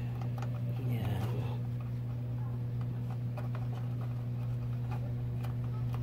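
Scattered small plastic clicks and taps of front-panel connector leads being handled and pushed onto motherboard header pins, over a steady low hum.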